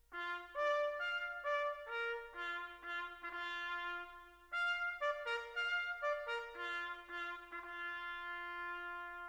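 A solo bugle call on a single brass instrument: a phrase of short and held notes on only a few pitches, starting just after a silence and ending on a long held low note.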